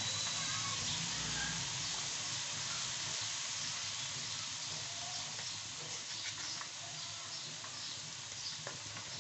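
Diced chicken, carrots and green capsicum sizzling gently in a metal pan on a very low flame: a steady hiss that eases slightly toward the end, with a few faint clicks.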